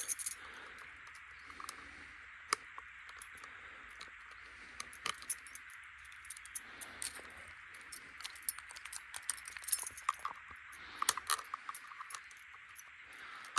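Keys jangling with scattered small metallic clicks as a key is used to pry out a jam in a .22 LR rifle's action.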